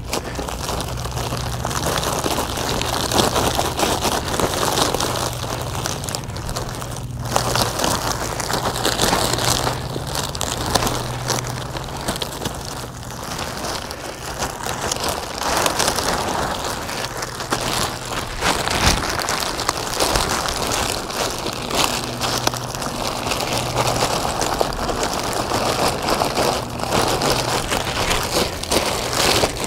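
QPR cold-patch asphalt mix pouring out of its plastic bag into a pothole: a continuous noisy pour with irregular crackles, along with the bag crinkling. A low steady hum comes and goes underneath.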